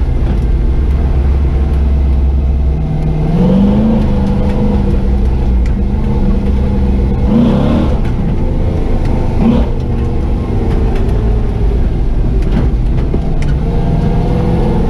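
LS-swapped 6.0 L V8 Chevy 4x4 truck under way: the engine note climbs about three and a half seconds in and holds, with brief rises near eight and ten seconds, over a steady low drivetrain and road rumble.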